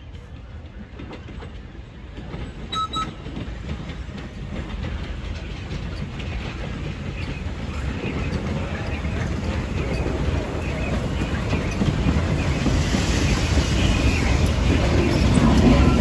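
Norfolk & Western J-class 611 steam locomotive and caboose rolling slowly past on the track, a low rumble of wheels on rail growing steadily louder as the train approaches.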